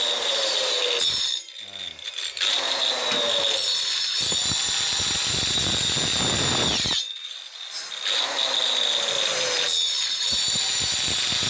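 Handheld Bull marble cutter fitted with a coarse 30-tooth wood blade, plunge-cutting into a wooden block while the trigger is feathered: the motor whines at full speed, cuts out briefly about a second in and again about seven seconds in, and each time spins back up with a rising whine.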